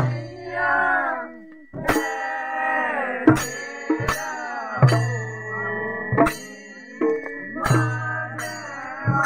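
Holi folk music: voices singing, with sharp drum or cymbal strokes about once a second and a few deep drum booms.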